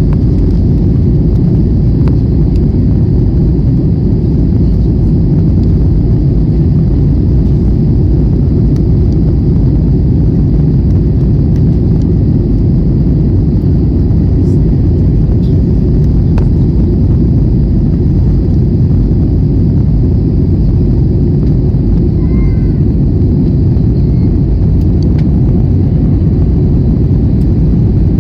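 Steady, unchanging drone of an airliner's engines and airflow, heard from inside the passenger cabin.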